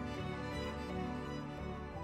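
Quiet background music with held tones, playing over the end of the video.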